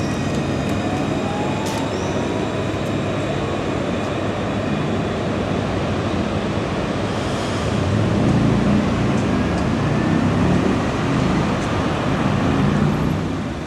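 Alstom Citadis 302 electric tram pulling away, its motors giving a faint rising whine in the first few seconds over steady street traffic noise. The low rumble of traffic grows louder about eight seconds in.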